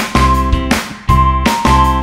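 Background music: a simple melody of held notes over a steady, deep beat.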